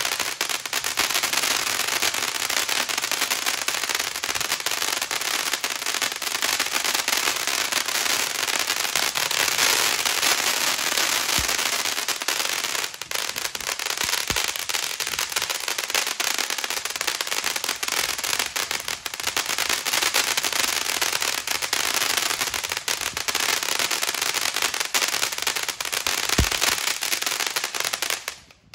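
Texas Outlaw Cry Wolf firework fountain spraying a loud, dense all-crackle: countless small pops running together in a steady sizzle. It cuts off suddenly near the end.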